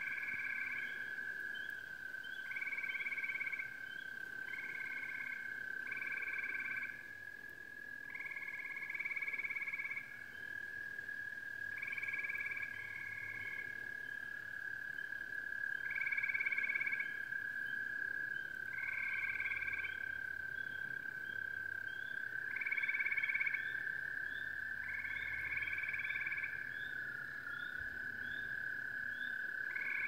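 Night chorus of frogs: repeated trilled calls about a second long, coming every couple of seconds, over a steady unbroken high drone, with rows of short quick chirps at the start and again near the end.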